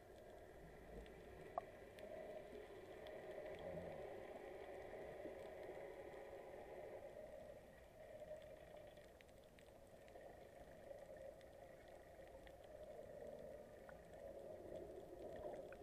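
Faint, muffled sloshing and bubbling of sea water around the camera at the surface, with a few light clicks.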